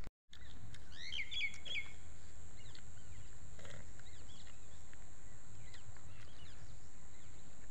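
Small birds chirping in the open air. A quick run of chirps comes about a second in, then fainter scattered chirps follow over a steady outdoor hiss.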